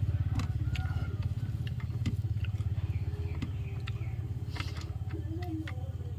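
An engine running steadily with a low, rapidly pulsing rumble, with scattered light clicks and clatters over it.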